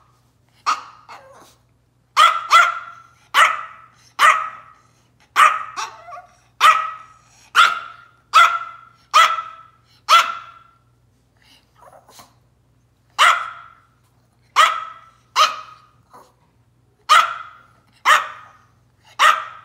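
Yorkshire terrier barking in a tantrum: a run of about twenty short, sharp barks, roughly one a second, with a brief pause a little past the middle.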